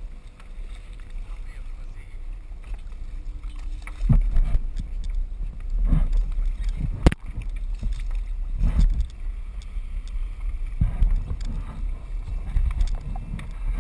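Water sloshing and slapping against the side of a boat hull in repeated surges over a low rumble, with one sharp knock about seven seconds in.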